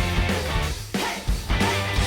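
Background music with a steady beat: a rock-style instrumental track.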